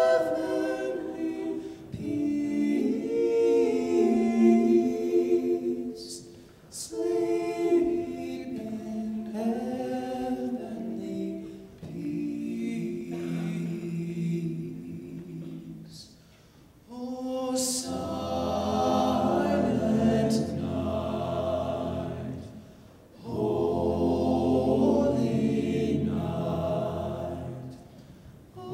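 Men's a cappella vocal ensemble singing in several parts through microphones, in phrases broken by short pauses. About two-thirds of the way through, a deep bass line comes in under the voices.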